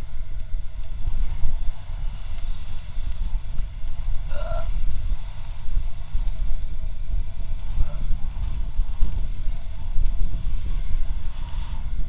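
Wind buffeting the microphone of a motorcycle riding at speed: a heavy, steady low rumble of wind and road noise. A short pitched sound cuts through about four seconds in.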